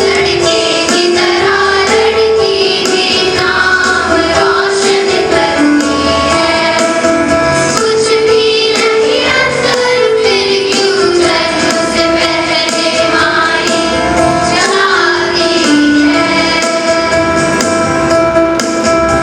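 A song playing: a sung melody over keyboard accompaniment, with held notes stepping up and down.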